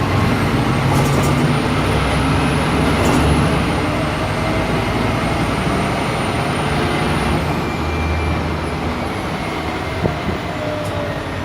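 Scania K310 city bus running along the road, its diesel engine and road noise steady, with the low engine note rising and falling; a short knock about ten seconds in.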